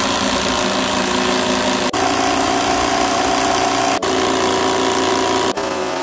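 Corded electric jigsaw running steadily, its blade sawing through a wooden tabletop, with three brief dips in the sound.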